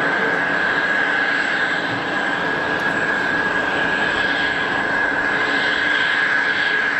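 Jet airliner engines running steadily: an even rushing roar with a steady high-pitched whine over it.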